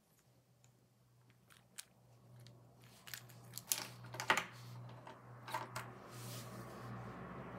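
Handling sounds of a plastic action figure being moved and set down on a wooden tabletop: scattered light taps and clicks, busiest around the middle, over a faint steady hum.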